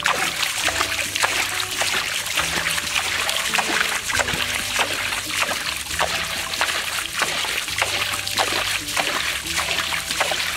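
Hands splashing and scooping through shallow muddy water: an irregular run of wet slaps and splatters, with background music playing underneath.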